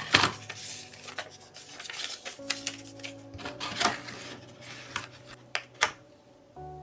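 Hands handling a smartphone box and its packaging: scattered sharp taps and clicks with some rubbing, over soft background music.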